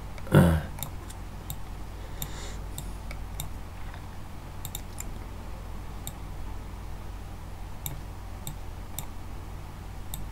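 Scattered computer mouse clicks at irregular spacing over a low steady hum, with one brief loud falling burst about half a second in.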